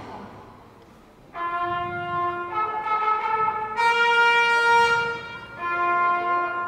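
A wind instrument starts about a second in and plays a slow melody of long held notes, each lasting about a second, with a brief dip before the last note.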